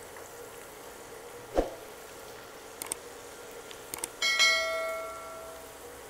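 Steel skimmer knocking against a kadhai of frying corn: a dull knock, a few light clicks, then a clear bell-like metallic ring that fades over about a second and a half.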